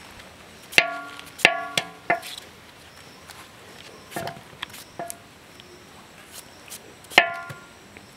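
Pieces of potato cut off by hand with a curved knife dropping into a metal pot, each one striking it with a short metallic ring. About eight irregular clinks, three of them louder: about a second in, at a second and a half, and near the end.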